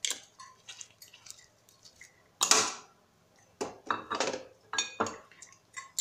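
Bottles clinking and knocking against each other and the tiled counter as oil bottles are set down and picked up. There is a scatter of short clinks, with one louder, longer knock about two and a half seconds in and a quick run of clinks a little later.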